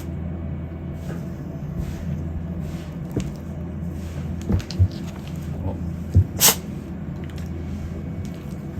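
Steady low room hum with a few short knocks, and a brief sharp click about six and a half seconds in.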